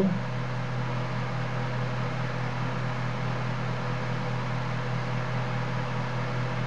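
A steady low hum with an even, fan-like whir and hiss, unchanging throughout, from the bench equipment running during a long AM transmission.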